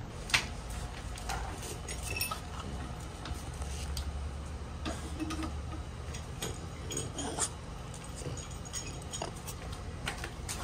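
Light clicks and clinks of small metal hose fittings being handled as a sewer jetter hose is taped and fitted to a pressure washer's outlet, with a low steady rumble underneath.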